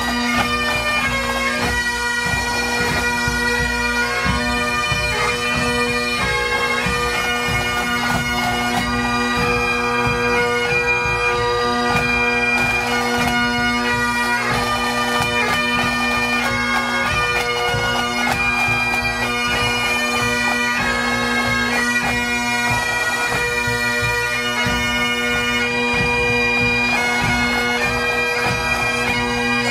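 A pipe band playing: Great Highland bagpipes, their drones holding one steady note under the chanter melody, with snare, tenor and bass drums beating along.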